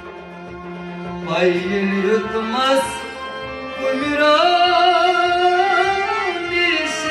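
A Sufi devotional song (kalam): a man's voice sung with harmonium and string instruments, over a steady low beat.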